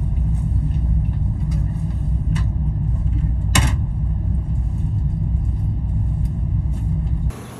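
Steady low rumble inside a passenger train carriage, with faint clicks and one sharper click about halfway through; it cuts off abruptly near the end.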